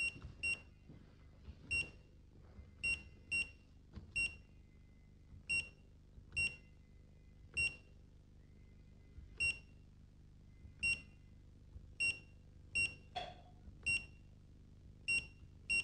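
Danfoss TPOne programmable room thermostat giving a short high beep at each key press, well over a dozen beeps at irregular spacing, sometimes two in quick succession, as its date and time settings are stepped through during the startup routine.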